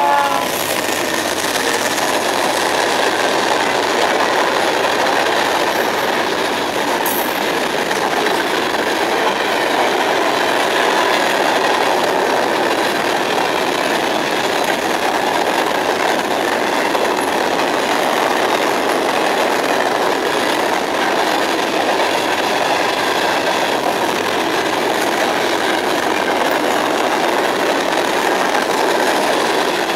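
Freight train passing close by: tank cars and covered hoppers roll over the rails with a loud, steady wheel-on-rail noise that holds at one level throughout.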